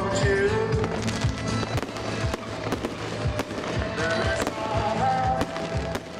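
Fireworks going off: many sharp bangs and crackles from shell bursts and fountains, over music that plays throughout.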